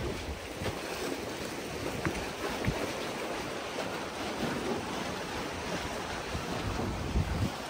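Sea surf washing steadily onto a sandy beach, with wind gusting on the microphone, most strongly near the end.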